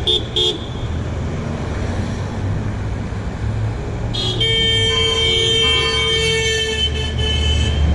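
Passing cars honking at a roadside 'honk if' sign: two short toots right at the start, then one long steady horn blast from about four seconds in that lasts over three seconds, over the low rumble of road traffic.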